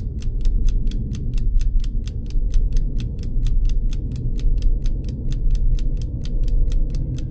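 Rapid, even ticking, about five ticks a second, over a low rumbling drone: an ominous sound-design bed from a film score.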